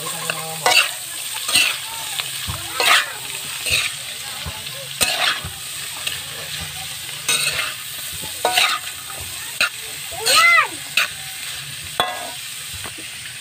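Julienned green papaya being sautéed in hot oil in a stainless steel pan: a steady sizzle under about a dozen irregular scrapes and clatters as a spatula turns the strips against the metal pan, with a brief squeal late on.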